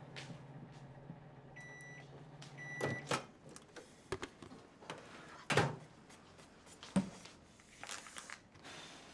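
Microwave oven running with a low hum, then beeping twice as its cycle finishes; the hum stops and the door clicks open about three seconds in. A few knocks follow as a dish is taken out, and near the end there is a rustling.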